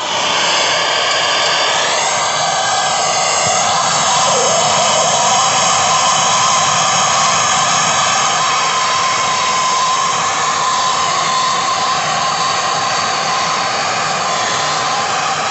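Two gas torches burning at once: a steady, loud rushing hiss of flame that comes on suddenly and then holds. They are heating a wire-bound billet of 18k gold and sterling silver on a charcoal block up to liquid-phase fusion.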